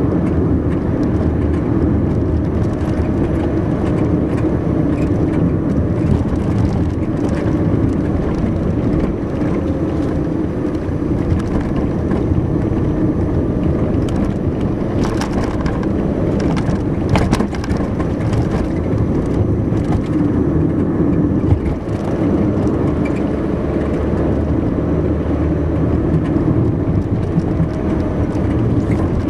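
Car driving at steady speed, its engine and tyre-on-road noise heard from inside the cabin, with a few brief clicks about halfway through.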